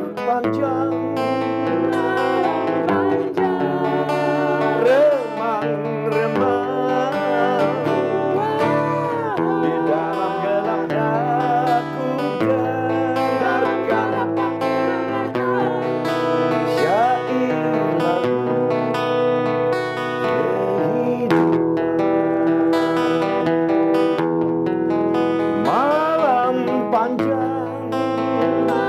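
Rock song with guitar accompaniment and a singing voice.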